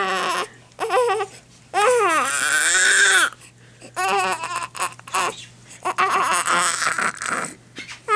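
Newborn baby crying: a string of wails broken by short gasps for breath, the longest held for about a second and a half starting about two seconds in, the later ones rougher and raspier.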